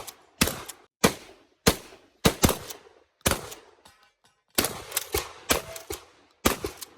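Shotgun firing a rapid string of about a dozen shots, one to two a second, some in quick pairs, each with a short echoing tail.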